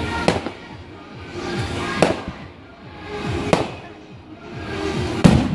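Aerial fireworks bursting: four sharp bangs about a second and a half apart, the last one the loudest.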